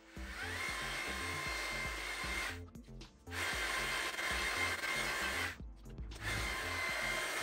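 Handheld electric paddle mixer stirring a bucket of sand-cement mortar. Its motor whines up to speed and runs steadily, stopping and restarting twice, about two and a half and five and a half seconds in.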